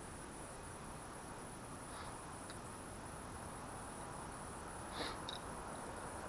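Crickets trilling steadily in the background as a continuous high, thin tone. There are a few faint light clicks, with the most distinct one about five seconds in, as parts are handled on the engine.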